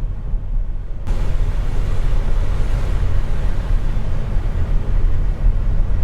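Car driving on a mountain highway, heard inside the cabin: a steady low road and engine rumble. About a second in, a rushing hiss of wind and tyre noise rises sharply and holds.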